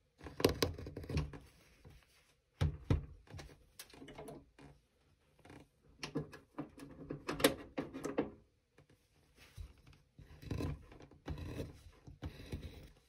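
Carving knife slicing chips off a basswood figure held in the hand, in irregular short strokes with brief pauses between them.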